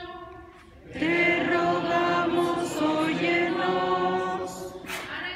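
A church congregation and clergy singing a chanted response together. It comes in loud about a second in, after the last faint notes of a woman cantor singing alone, and fades near the end.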